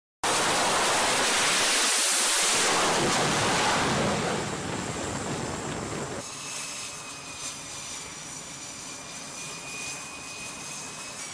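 Jet engines on a carrier flight deck: a loud roar that fades after about four seconds. Then the steadier, quieter running of a nearby F/A-18 Super Hornet's engines, with a high whine.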